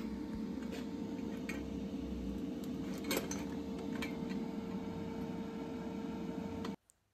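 Steady workshop hum with a few light metallic clinks scattered through it, as the stainless steel exhaust pipe is handled. The hum cuts off suddenly near the end.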